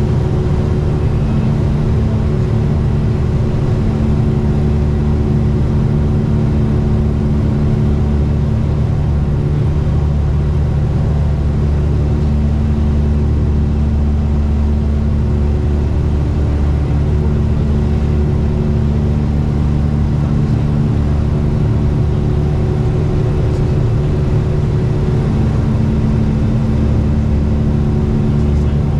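Cabin noise of a Tecnam P2006T in flight: its twin Rotax 912 four-cylinder engines and propellers droning steadily, with one higher tone in the drone fading in and out.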